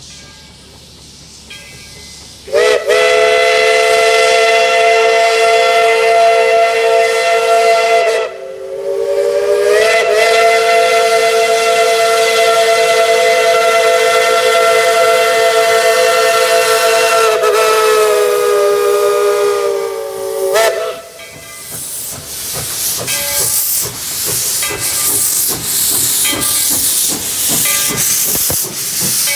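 Multi-note chime steam whistle of Tweetsie Railroad's No. 12, a Baldwin 4-6-0 steam locomotive, blown in two long blasts, the second about twice as long as the first, each sagging in pitch as it shuts off. Then, as the engine passes close by, a loud hiss of steam from the open cylinder cocks with regular exhaust chuffs.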